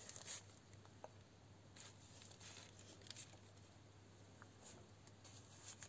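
Near silence: a few faint rustles of soil-filled plastic bags being handled, over a low steady hum.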